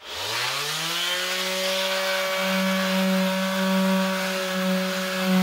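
Electric detail sander switched on, its motor whine rising in pitch over the first second or so as it spins up, then running steadily as the sandpaper rasps over cured JB Weld marine epoxy filler on an aluminum boat hull, sanding it flat.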